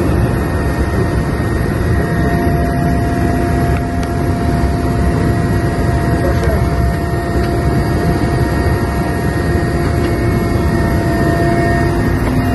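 Helicopter cabin noise heard from inside: turbine engines and rotor running steadily, a dense rumble with a constant high whine.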